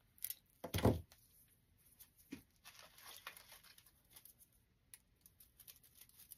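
Soft dry crackling and rustling of a twig bird's nest being handled while a bent floral stem is worked into it, with one louder thump a little under a second in.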